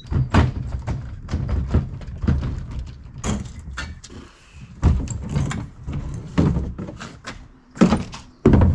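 A series of heavy wooden knocks and clunks, roughly one a second, from lumber being handled and a loaded two-wheeled cart rolling over wooden dock planks.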